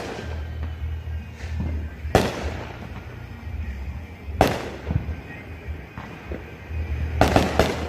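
Neighborhood fireworks and firecrackers going off: single sharp bangs about two seconds in and again about four and a half seconds in, then a quick run of several bangs near the end.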